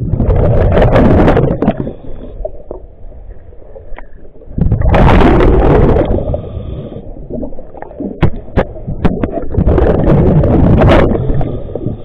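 An underwater diver breathing through a regulator: three loud gushes of exhaled bubbles, about four to five seconds apart, each followed by a quieter, thin hiss of inhalation. Sharp clicks and ticks come between the breaths.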